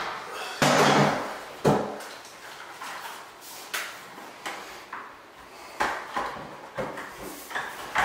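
Cordless faux wood blind being lifted and snapped into its headrail mounting brackets: a short clatter near the start, then a string of separate sharp plastic clicks and knocks as the headrail is pushed into place.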